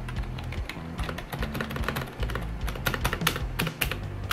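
Keys being pressed on an Armaggeddon gaming keyboard: a run of quick, irregular key clicks starting about a second in and thickest near three to four seconds, over background music.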